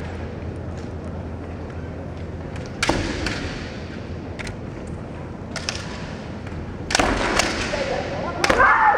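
Kendo bout: sharp cracks of bamboo shinai strikes and stamping feet on a wooden floor, one about three seconds in and a cluster from about seven to eight and a half seconds. A fighter's shouted kiai comes at the very end.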